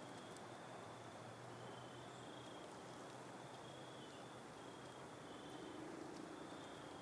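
Crickets trilling faintly: a high, thin trill repeated in stretches of about a second with short breaks between them.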